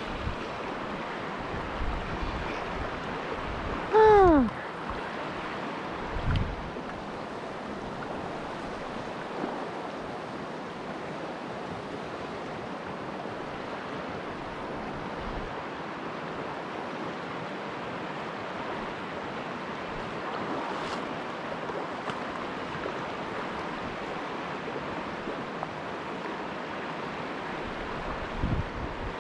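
Shallow river flowing steadily over a rocky bed, with some wind on the microphone. About four seconds in, a short loud tone slides down in pitch; a low thump follows about two seconds later.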